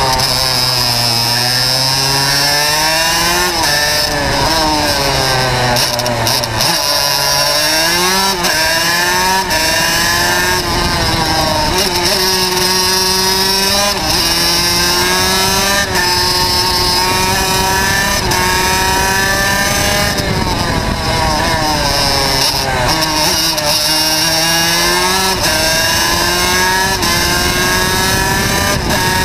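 Two-stroke racing kart engine at full throttle, its pitch rising steadily as the kart accelerates and dropping sharply each time the driver lifts off for a corner, several times over.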